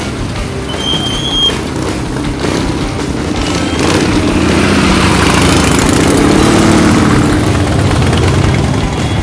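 Vehicle engines running as an old pickup truck and then a group of motorcycles roll slowly past. The sound swells about four seconds in and eases off near the end.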